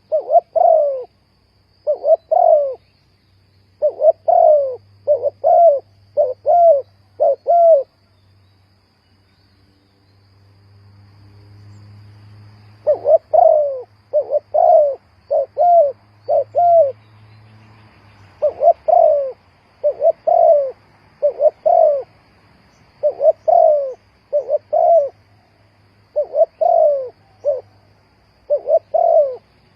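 Spotted dove cooing: short, repeated coo notes in phrases of several notes each, with a pause of about five seconds about a third of the way through.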